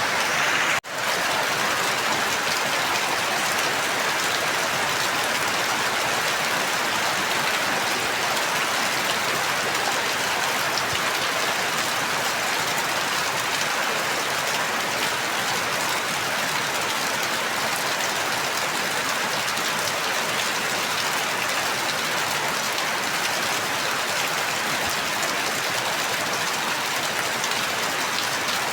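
Steady rain falling, a dense, even hiss. It drops out for an instant about a second in.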